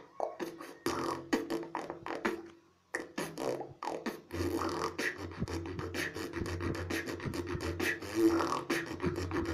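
Female beatboxer performing vocal percussion: a rapid run of mouth-made hits, a brief pause just before three seconds in, then a steady low bass hum held under the continuing beats from about four seconds in.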